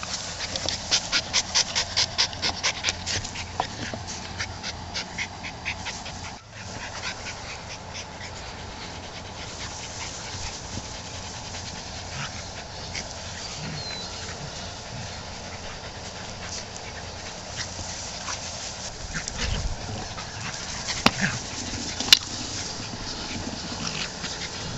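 Keeshond dog panting fast and close, about three or four breaths a second, for the first five seconds or so. Then quieter sounds of the dogs playing in grass, with two sharp clicks near the end.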